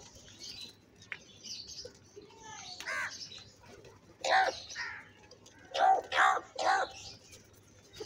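House crows cawing at a feeding bowl: a harsh caw about three seconds in, a louder one near the middle, then three loud caws in quick succession around six seconds in.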